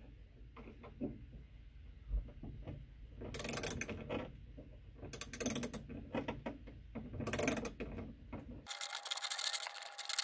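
Hand socket ratchet clicking in three short bursts as it is swung back and forth to drive a screw into an electrical box, then a denser run of clicking near the end.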